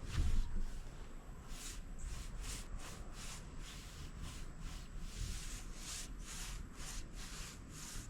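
Paintbrush strokes spreading oil-based deck stain on wood: a run of short, scratchy swishes, a few a second.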